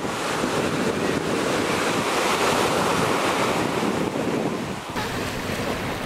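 Small surf breaking and washing up a sandy beach, a steady rushing wash that swells and falls, with wind buffeting the microphone. The sound changes abruptly about five seconds in.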